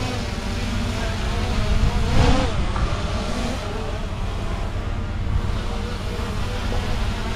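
Small camera drone's propellers buzzing steadily during a test flight, the drone flying normally after its fall.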